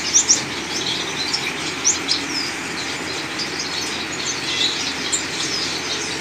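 Small caged finches chirping: many short, high chirps throughout, a couple of louder ones right at the start and another near two seconds in, over a steady background hiss.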